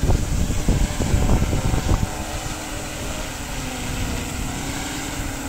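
DJI Matrice quadcopter's propellers spinning with a steady hum under gusts of wind on the microphone. The wind is strongest for the first two seconds, then the drone's hum stands out and edges slightly higher near the end.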